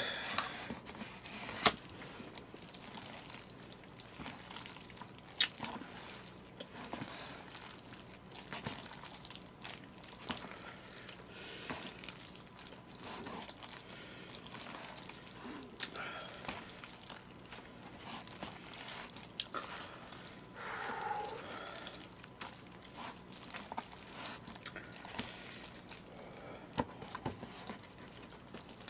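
Chopsticks stirring and lifting jjajangmyeon noodles coated in black bean sauce in a bowl: soft, wet, sticky squelching of the noodles with scattered small clicks of chopsticks against the bowl.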